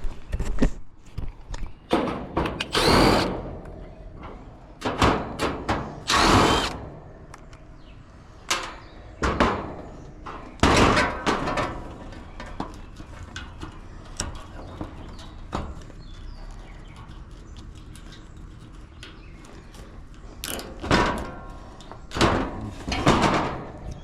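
Tool work on an air-conditioner condenser unit: irregular clanks and knocks, with a few louder bursts of about a second each.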